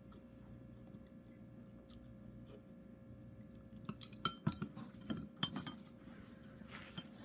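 A handful of light clinks and taps of wooden chopsticks and utensils against a dish, bunched together about four to six seconds in after a quiet stretch, with one last small tap near the end.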